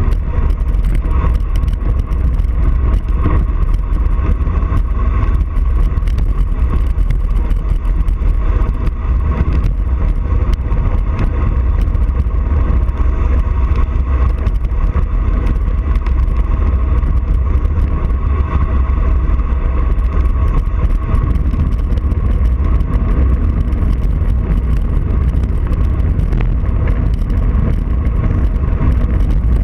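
Wind buffeting a bicycle-mounted camera's microphone on a fast road descent: a loud, steady low rumble of rushing air.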